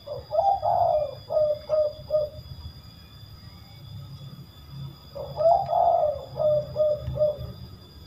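Spotted dove (tekukur) cooing twice, about five seconds apart: each call is a drawn-out coo followed by three short 'kuk' notes, the rare three-kuk variant prized by keepers.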